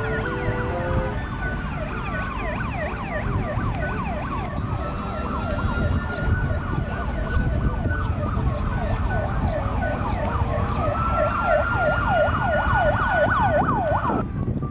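Emergency-vehicle siren alternating a long rising-and-falling wail with runs of fast yelping sweeps, cut off abruptly near the end.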